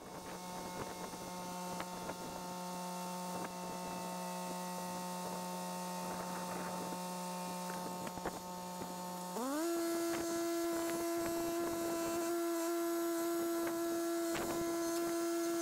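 Tractor running with a steady whine, which steps up in pitch about nine seconds in as the throttle is raised and then holds at the higher note.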